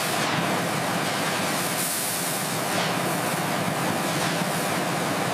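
CNC thermal cutting torch cutting through steel plate: a steady, even hiss of the cutting jet, unbroken throughout.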